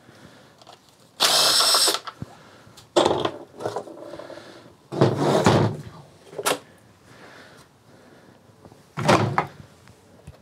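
A handheld power tool whirs for under a second, backing out a timing-cover bolt, followed by several clunks and rattles as the plastic timing-belt covers are pulled off a Subaru EJ engine.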